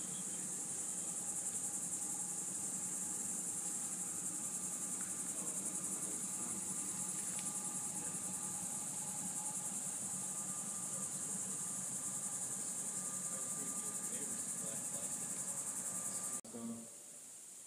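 A steady, high-pitched chorus of insects trilling with a fast pulse, which cuts off abruptly near the end and leaves a faint hiss.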